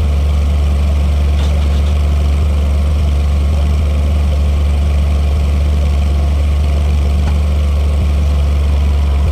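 Rebar bending machine's motor running with a steady, loud, low hum, with a couple of faint metallic ticks.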